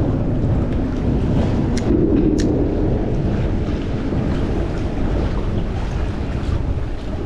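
Wind buffeting the microphone over choppy water, a steady low rumble and rush. Two short sharp clicks come about two seconds in.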